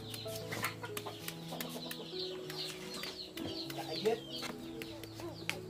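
Chickens clucking with repeated high, falling peeps, over crisp clicks of a small blade cutting through shallots.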